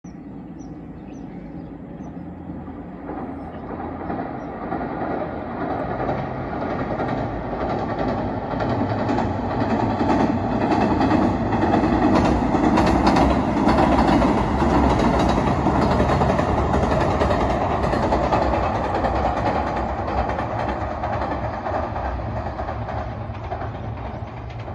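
Diesel Anpanman express train crossing a steel truss bridge: a rumble of engines and wheels that builds to its loudest about halfway through, then fades as the train moves away.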